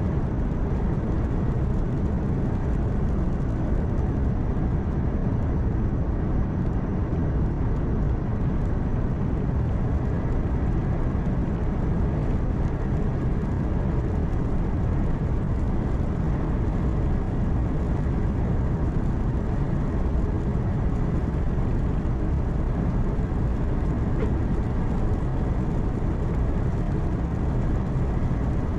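Steady drone inside a truck cab at highway speed: engine hum mixed with road and tyre noise, constant throughout with no distinct events.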